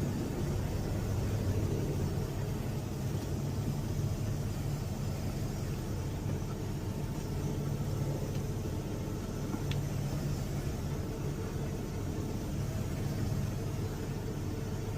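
Semi truck's diesel engine running steadily at low speed while the truck is maneuvered into a tight spot. It makes a low, even rumble.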